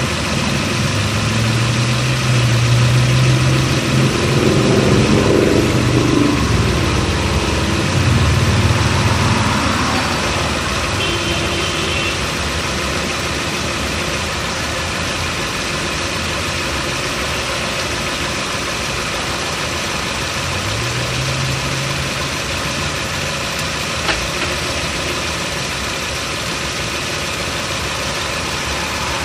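A running 2011 Chevrolet Cruze heard from a camera strapped to its front right suspension strut: steady engine and road noise, the engine's pitch rising twice, with one sharp click about three-quarters of the way through.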